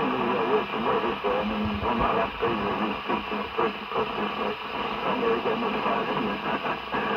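A voice received over a CRT 6900N CB radio on FM, coming through its speaker with a steady hiss under it.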